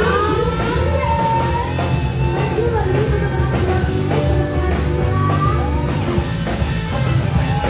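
A woman singing a melody into a handheld microphone over amplified backing music with a steady beat.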